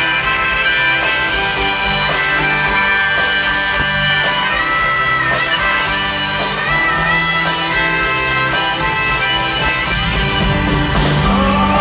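Live rock band playing, with a harmonica carrying the lead melody in long, wavering notes over guitars and drums, amplified through a stadium PA.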